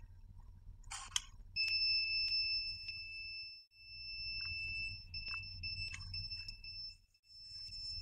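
A Solax Transformer mobility scooter's electronic buzzer beeping in one steady, high, continuous tone during remote pairing. The tone starts about a second and a half in, and a few light clicks of buttons being pressed sound over a low rumble.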